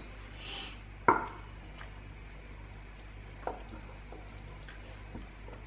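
Light kitchen knocks and taps of a utensil against a bowl and pot as chopped parsley is added to thick polenta, over a faint steady low hum. There is a sharp knock about a second in and a softer one a couple of seconds later.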